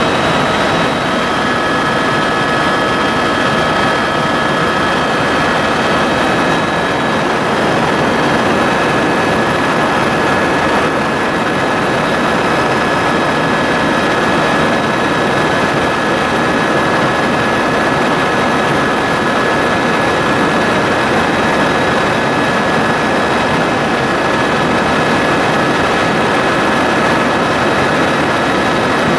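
Helicopter cabin noise in flight: the steady drone of the rotor and airflow with a constant high-pitched turbine whine, heard from inside the cabin. It stays even throughout.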